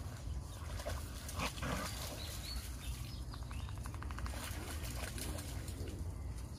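Dogs making short, low vocal sounds while they play, with scattered clicks and scuffling over a steady low rumble.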